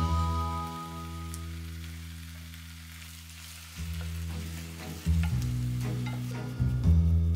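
Ground meat and mushroom sauce sizzling in a pan as it is stirred with a wooden spatula. Background music with sustained low notes that change every second or two is the loudest sound.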